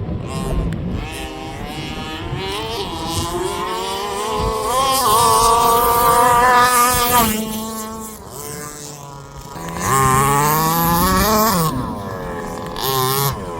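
Small two-stroke petrol engines of large-scale RC cars running at high revs. The pitch climbs to a loud peak, drops off sharply about seven seconds in, then rises and falls again as a car speeds past.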